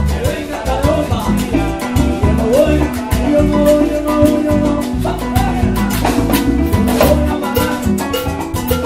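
Live salsa band playing: congas and drum kit keep a steady beat under keyboard, guitar and a bass line, with a man singing over it.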